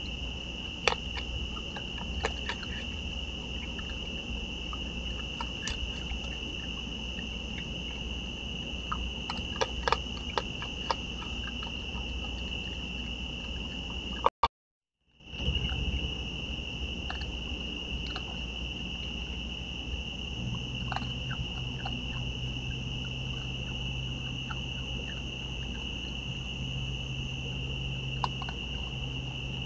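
Night insects trilling steadily on one high pitch, with scattered sharp clicks and crunches of raccoons eating dry food from bowls. The sound cuts out for a moment about halfway, and a steady low hum comes in during the second half.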